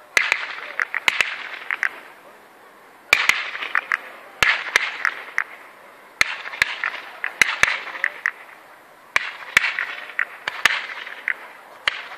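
Fireworks display: volleys of aerial fireworks going up about every three seconds, each a cluster of sharp bangs followed by a hissing, fizzing tail that fades before the next volley.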